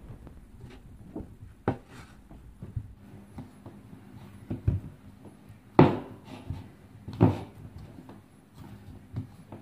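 Hand-kneading of a stiff flour-and-egg pasta dough in a bowl: irregular dull knocks and thumps as the dough is pressed and the bowl shifts on the tabletop, the loudest about six seconds in.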